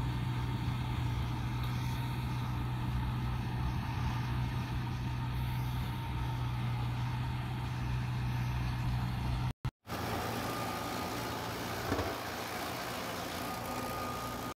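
Universal 640V tractor engine running steadily, driving a flail mower. About two-thirds of the way through, the sound cuts out twice for a moment, then goes on thinner and noisier with a faint high whine.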